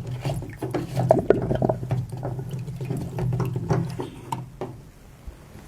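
Front-loading washing machine's drain filter plug being unscrewed, with leftover water trickling and splashing out and small plastic clicks and knocks. It fades down about five seconds in.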